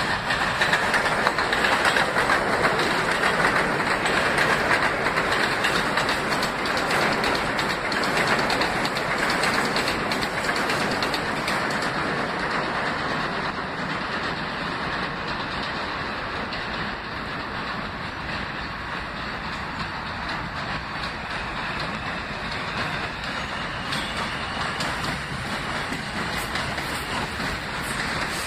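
New York City subway train of stainless-steel R160 cars running along an elevated steel viaduct: a steady rumble of steel wheels on the rails, loudest at first and easing off gradually.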